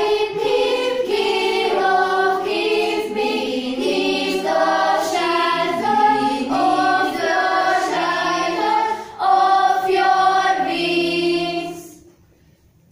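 Girls' school choir singing, several voices together; the singing stops near the end.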